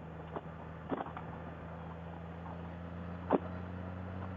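Motorcycle engine idling steadily, with a few light clicks and one sharp knock about three seconds in.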